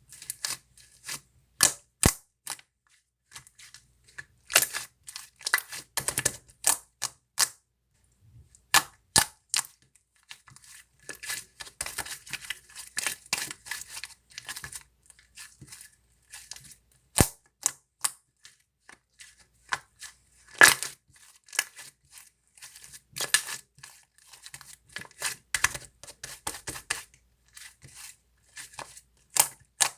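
Oreo cream slime being squeezed and stretched by hand, giving irregular sharp pops and crackles as trapped air bubbles burst, with softer sticky crinkling in between.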